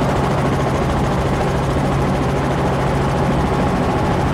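Helicopter engine and rotor heard from inside the cabin in flight: a loud, steady drone with a constant low hum.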